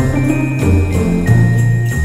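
Christmas-style background music with jingle bells over a bass line and a simple melody, at a steady beat.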